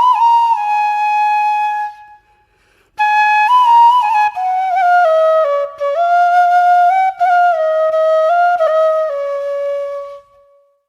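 Music: a solo flute playing a slow, sliding melody, with a pause of about a second near the start and a fade shortly before the end.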